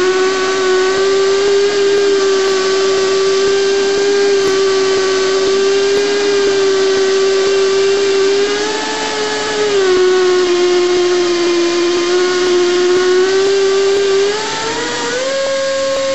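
Esco Prepzilla pipe end-prep machine cutting a bevel on a steel pipe end. Its motor gives a steady whine, dips slightly in pitch about ten seconds in, and climbs higher near the end.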